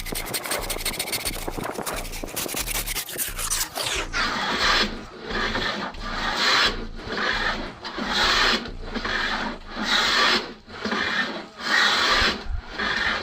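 Hand filing along the edge of a laminate sheet: quick scraping at first, then long, even back-and-forth strokes about once a second.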